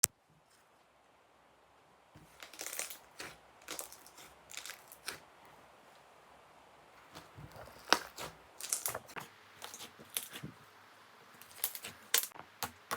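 Slime being squeezed and poked by hand, giving irregular sticky clicks and small pops that start about two seconds in.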